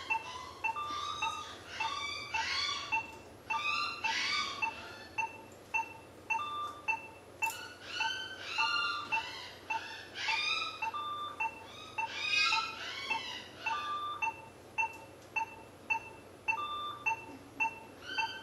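Surgical patient monitor beeping steadily with the heartbeat, short even beeps about one to two a second. Over it runs a louder, wavering high-pitched sound that comes and goes every second or two.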